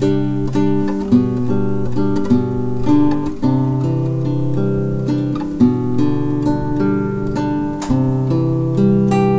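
Background music: acoustic guitar playing a plucked melody over held bass notes.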